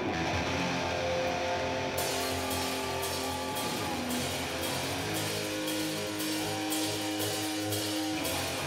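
Heavy metal band playing live: electric guitar holding long, sliding notes over bass. Drums with cymbal crashes come in about two seconds in, roughly two a second.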